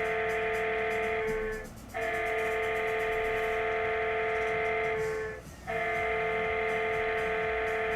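Background music: a sustained chord, held for about three and a half seconds, repeated three times with brief breaks between.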